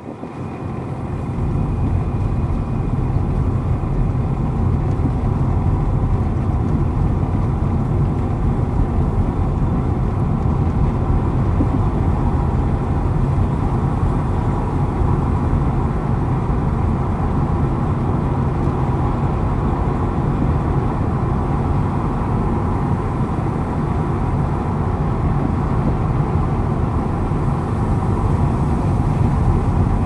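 Steady low road and engine rumble heard inside a car cabin while driving on a tarred road. It builds up over the first couple of seconds and then holds steady.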